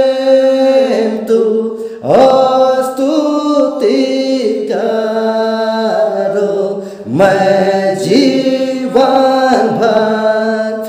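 A man singing a Hindi hymn solo and unaccompanied, in long held notes that slide from one pitch to the next, with brief breaths between phrases.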